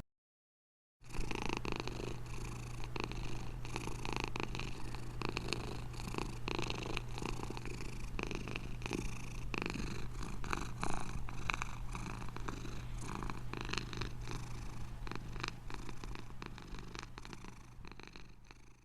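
A domestic cat purring steadily, with many small clicks through it. It starts about a second in after a moment of silence and fades out near the end.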